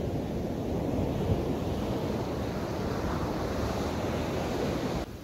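Ocean surf breaking and washing up the beach, a swelling and ebbing rush of water, with wind buffeting the microphone. The sound drops away abruptly about five seconds in.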